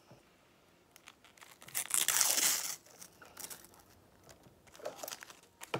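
An NBA sticker pack's wrapper being torn open by hand. A loud rip comes about two seconds in, followed by shorter crinkles as the wrapper is pulled apart.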